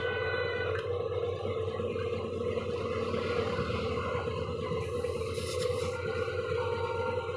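Twin-piston, two-stage air compressor running steadily: a continuous machine hum with a fast pulsing beat. A brief hiss comes in about five seconds in.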